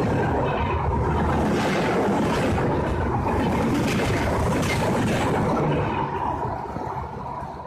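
Express passenger train running past: a steady rumble of wheels on rail with repeated clatter over the rail joints, dying away in the last couple of seconds as the train moves off.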